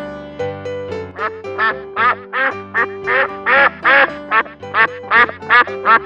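Duck quacking in a rapid run of short quacks, about three a second, starting about a second in, over light keyboard background music.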